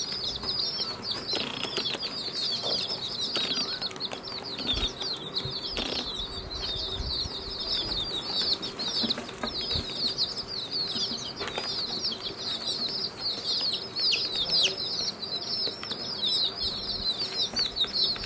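A brood of domestic baby chicks peeping nonstop, many high short chirps overlapping each other.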